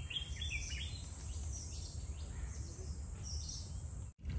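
Outdoor forest ambience: a steady low rumble with several short bird chirps in the first second and a few fainter calls about three seconds in.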